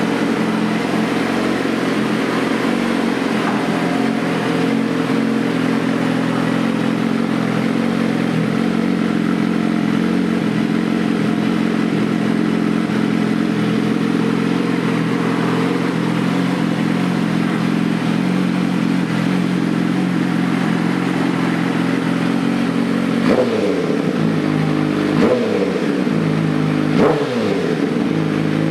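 Suzuki GSX-R1000 inline-four idling steadily through an Arrow Pro-Race titanium slip-on exhaust, then revved in three short throttle blips near the end.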